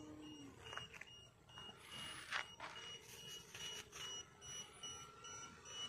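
Electronic buzzer giving a faint, steady run of short high beeps, a second higher beep joining about halfway through: the RC flight alarm signalling that the model must come down and land.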